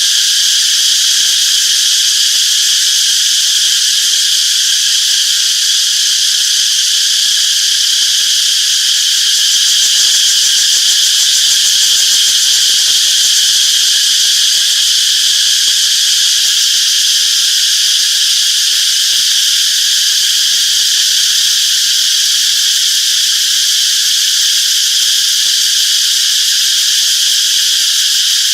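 Cicadas chorusing: a steady, unbroken high-pitched buzzing that holds the same level throughout.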